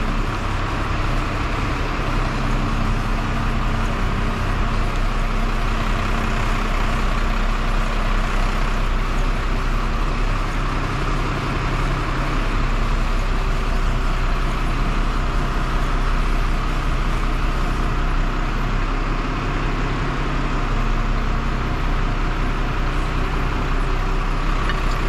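Crane truck's engine running steadily, powering its hydraulic crane.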